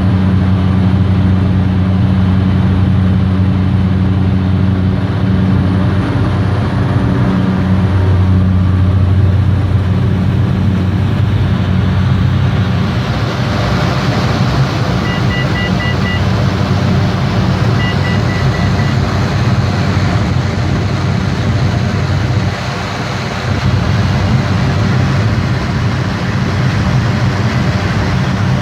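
Cessna 208 Caravan's Pratt & Whitney PT6A turboprop engine and propeller running with a steady low drone, joined by a louder rushing hiss from about halfway through. Two short runs of rapid high beeps sound near the middle.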